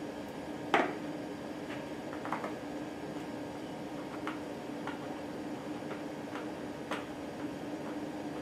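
Scattered small clicks and taps of a small screwdriver tightening the screws of plastic tubing clips on a turbidimeter's mounting bracket, with one sharper click about a second in, over a steady low room hum.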